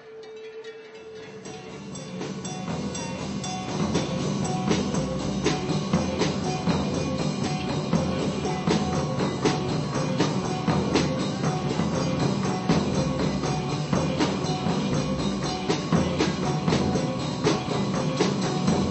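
Percussion-heavy music on drums and other struck instruments, played by computer-driven mechanical instruments. It swells over the first few seconds into a steady beat with many sharp strikes.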